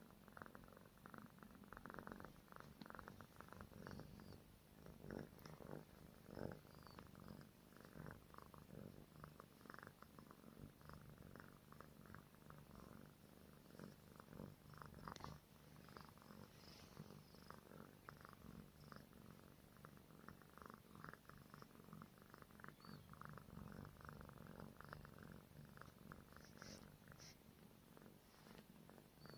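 Tabby cat purring softly and continuously.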